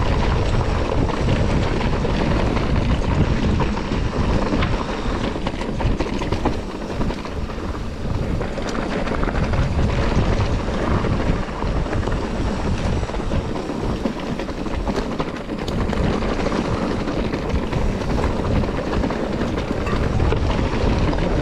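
Wind buffeting a helmet-mounted action camera's microphone over the rumble and rattle of a mountain bike rolling down a rough, rocky trail. The noise is continuous and fluctuating, with a heavy low rumble.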